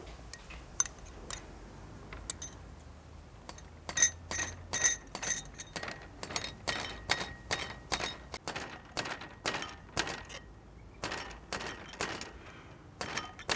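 A metal spoon clinks against a small ceramic bowl as ingredients are scraped into a clay mortar. Then a wooden pestle pounds steadily in the clay mortar, about two to three strikes a second, crushing a chili sauce paste.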